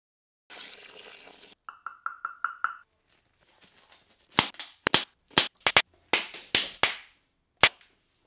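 A blue rubber glove being handled: a brief hiss, then five short squeaks, then about ten sharp snaps and slaps as the rubber is stretched and let go.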